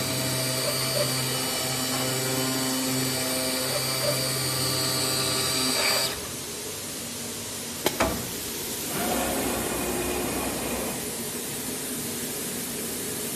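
AOKE DCZ70 digital flatbed cutter running over corrugated board: a steady whine of several tones from its motors. About six seconds in, the whine stops and leaves a quieter steady hiss, with one sharp click about two seconds later.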